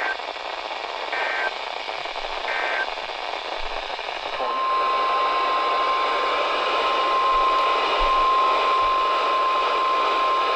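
Three short bursts of EAS digital data tones, the end-of-message code, over radio hiss. About four and a half seconds in, the steady 1050 Hz NOAA Weather Radio warning alarm tone begins and holds.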